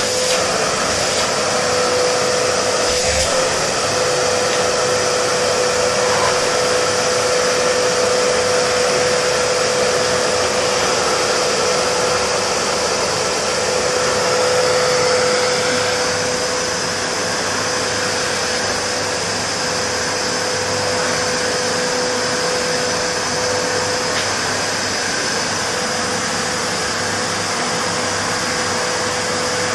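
Vacuum cleaner running steadily on a floor: a constant whine over a rushing hiss, dropping slightly in level about halfway through.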